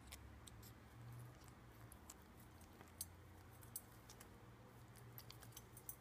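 Faint, irregular little splashes and ticks of a Pacific parrotlet bathing in a metal water dish, flapping and shaking in the water, over a low steady hum.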